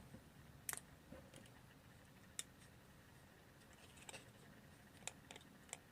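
Near silence with a few faint, scattered clicks and taps from a small die-cast model car being handled.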